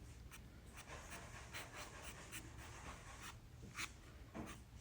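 Faint scratching of a size 12 Micron pen scribbling quick marks on toothy watercolor paper, in short, irregular strokes.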